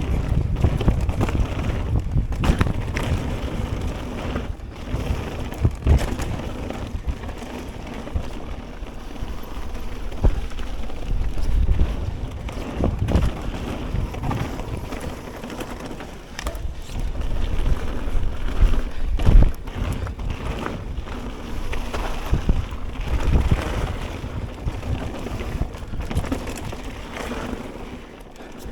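Wind buffeting the action camera's microphone while riding a Ragley BigWig mountain bike on a dirt trail, with tyre noise and frequent knocks and rattles from the bike over rough ground.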